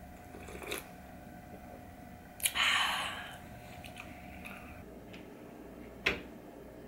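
A person slurping soup broth from a plastic takeout cup, one loud slurp lasting under a second. A sharp click near the end.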